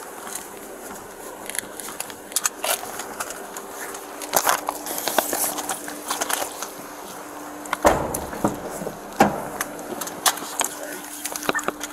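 Rustling and handling noise of papers and clothing against a body-worn camera, with scattered clicks and two heavier thumps about eight and nine seconds in, over a faint steady hum.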